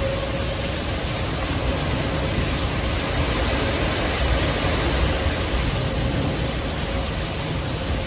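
Severe thunderstorm: heavy rain and strong wind gusts thrashing the trees, a steady loud rush of noise.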